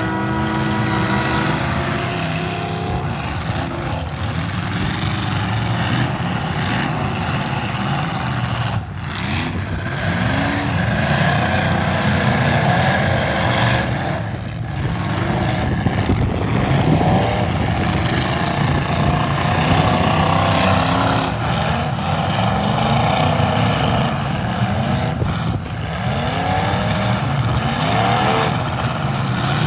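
Several demolition derby car engines running together, revved again and again so that their pitch keeps rising and falling over a steady low rumble.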